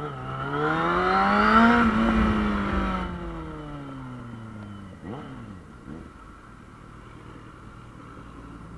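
Yamaha Fazer 600 inline-four motorcycle engine accelerating hard, its pitch climbing for about two seconds, then winding down slowly as the throttle closes. Two short quick rises in pitch come about five and six seconds in, and then it runs low and steady.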